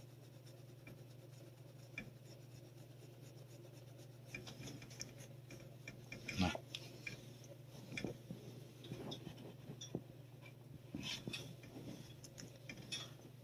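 Faint rustling and rubbing of a thick cloth work glove stroking a cat's fur, with scattered light clicks and one louder short knock about six and a half seconds in, over a steady low hum.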